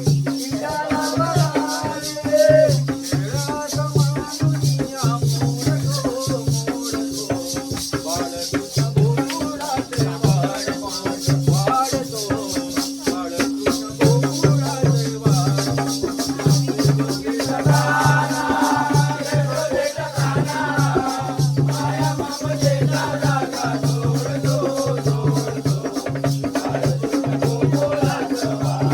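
Jakhadi folk music: a fast, even rattling percussion rhythm runs over a steady held drone note and a repeating pattern of low drum notes. A singer's voice wavers in and out and is strongest about two-thirds of the way through.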